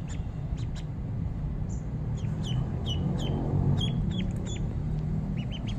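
Duckling peeping: a string of short, high peeps that slide down in pitch, coming in irregular runs of one to three a second, over a steady low rumble.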